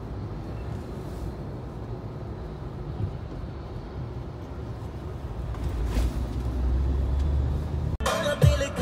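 Low road and engine rumble inside the cabin of a moving Mahindra Thar, growing louder about two-thirds of the way through. Near the end it cuts off abruptly and music starts.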